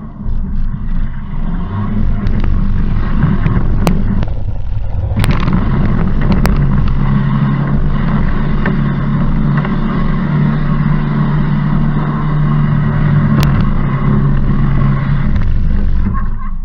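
Off-road vehicle's engine running hard under load through mud, its revs held fairly steady for long stretches, with a few sharp clicks.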